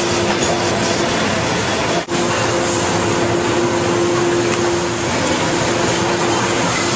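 Steady loud machinery noise of an injection-moulding factory floor, a dense even rush with a faint steady hum in it. It drops out for an instant about two seconds in.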